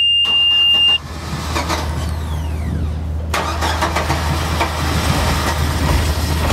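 A Glastron 185 runabout's engine starting with the key while the dash warning buzzer sounds a steady high tone; the buzzer cuts off about a second in as the engine catches. The engine then runs steadily at idle.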